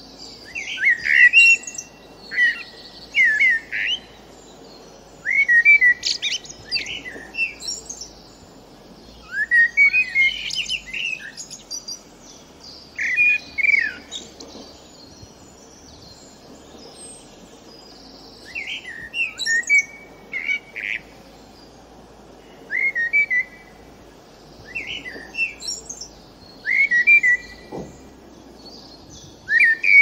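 Male common blackbird (Turdus merula) singing: about a dozen short, fluty warbled phrases, each running into higher, thinner twittering notes, with pauses of one to several seconds between them.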